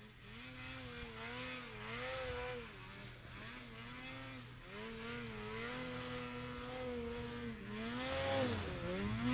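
Snowmobile engine revving up and down as a sled climbs through deep snow, its pitch wavering again and again and getting louder near the end.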